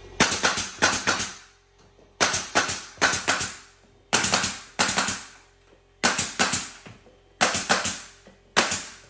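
Pneumatic nail gun shooting nails through crown molding into the wall, in quick bursts of three or four sharp shots about every second and a half.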